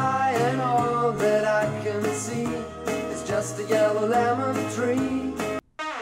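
A song with a singing voice and steady bass notes played back through a JBL Flip 2 portable Bluetooth speaker, its two 40 mm drivers and bass port, recorded in the room from about two feet away. The music cuts out suddenly near the end and a different passage starts.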